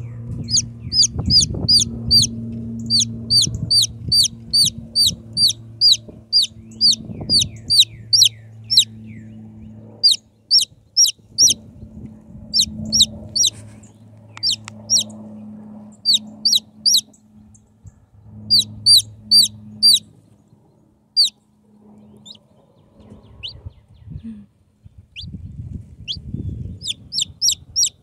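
Day-old Jersey Giant chick peeping loudly: short, high, downward-sliding peeps two or three a second, in runs with short pauses. A low steady hum lies underneath and stops about two-thirds of the way through.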